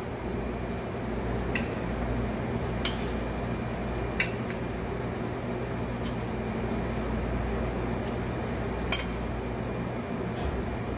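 Metal spoon scraping and clinking against a small stainless-steel saucepan as couscous is spooned out onto a plate: a handful of sharp clinks over a steady low hum.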